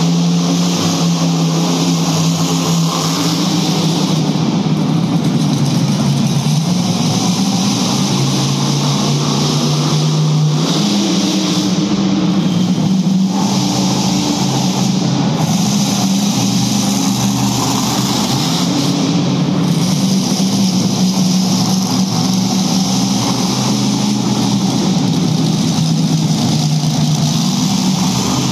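Monster truck engine running loud, its note dropping about six seconds in and rising again around ten seconds in as it is revved and eased off.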